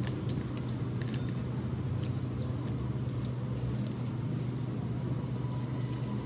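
Close-up eating sounds of rice and chicken eaten by hand: wet chewing and mouth clicks, scattered and irregular, over a steady low hum.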